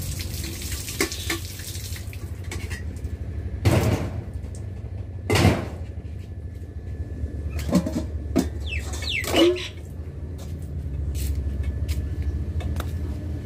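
Steel pots and plates clanking and scraping as they are washed, with a few sharp clanks and short metal scrapes, over a steady low rumble.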